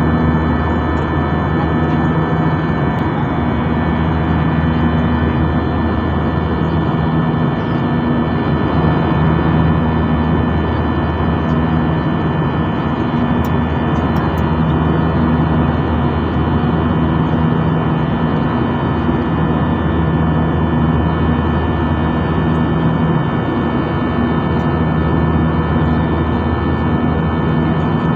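Jet airliner cabin noise in flight: the steady drone of the turbofan engines and rushing air, heard from inside the cabin, with a low hum and a few steady high whining tones.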